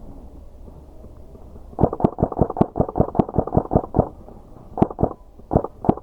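Airsoft rifle firing close by, a rapid string of about fourteen evenly spaced shots starting about two seconds in. After a short pause it fires a few more, in twos and threes.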